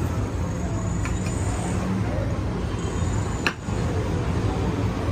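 Busy street-market ambience: a steady rumble of traffic with indistinct background voices. The sound drops out briefly about three and a half seconds in.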